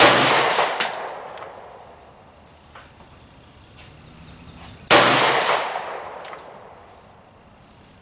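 Two shots from a CZ75 SP-01 9mm pistol firing 115-grain full metal jacket rounds, about five seconds apart in slow, aimed fire. Each shot is followed by a long echo that dies away over about two seconds.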